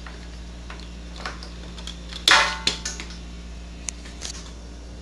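Sharp clicks and snaps of a beer line's plastic quick-disconnect and counter-pressure filler fittings being handled, the loudest a snap with a short hiss-like tail a little over two seconds in, followed by a second click.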